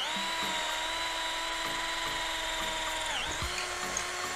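Makita cordless drill/driver boring a hole into a block of Bolivian ironwood (pau-ferro), a very hard, dense wood. The motor holds a steady whine under load and dips briefly in pitch about three seconds in.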